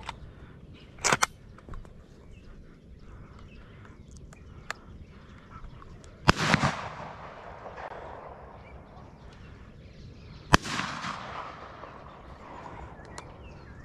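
Two 12-gauge shotgun shots about four seconds apart, each a sharp bang with a trailing echo, and a fainter pop about a second in.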